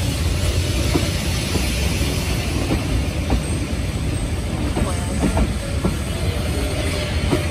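Passenger train coaches rolling past close by: a steady rumble of wheels on rail, broken by irregular clacks as the wheels cross rail joints.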